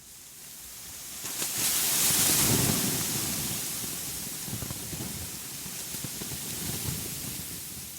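Steady rushing noise with a low rumble, coming in out of silence and swelling to its loudest about two seconds in, then settling.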